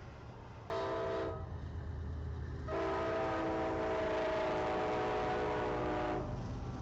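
Diesel locomotive air horn sounding a short blast, then a long blast of about three and a half seconds, several pitches sounding together, over the low rumble of the passing train.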